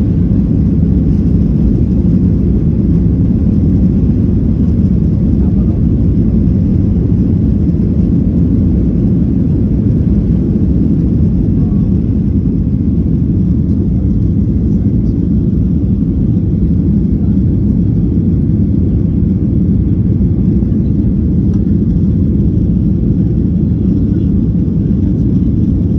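Steady low rumble of a Ryanair Boeing 737-800's CFM56 jet engines at takeoff power.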